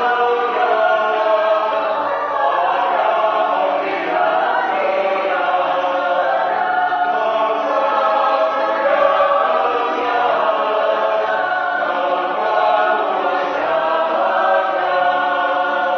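Background music: a choir singing in held notes, several voices together.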